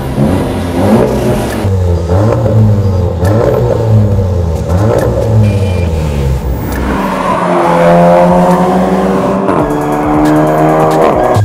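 Seat Leon Cupra 280's turbocharged 2.0-litre four-cylinder revved repeatedly at standstill, first through the stock exhaust and then through a 3-inch HG Motorsport Bull-X exhaust with downpipe. About seven seconds in, the car accelerates hard, the engine note rising, dropping at a gear change about two seconds later and rising again.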